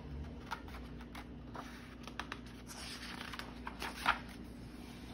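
Picture book pages being handled and turned: a few soft paper rustles and flicks, the loudest about four seconds in.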